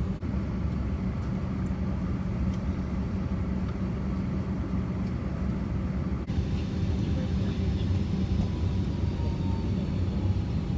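Steady ventilation drone inside an Airbus A321 cabin parked at the gate before engine start, with a constant low hum running under it.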